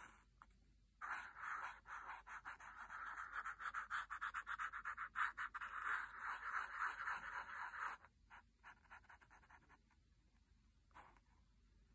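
Paint marker tip scratching over a phone case in quick back-and-forth scribbling strokes for about seven seconds, then a few short, separate strokes near the end.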